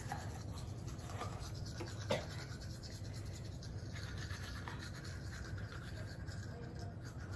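Toothbrush scrubbing a toddler's teeth in quick, faint strokes over a low steady hum, with a single brief click about two seconds in.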